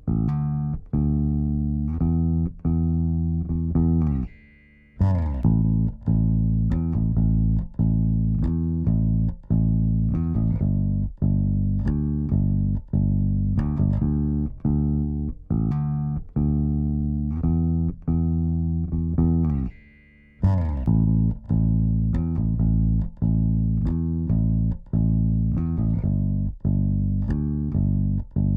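Solo bass guitar playing a repeating riff of plucked, sustained notes, heard through vari-mu tube-style compressor plugins. The riff stops briefly twice, about five seconds in and again near twenty seconds, and starts over from the top each time.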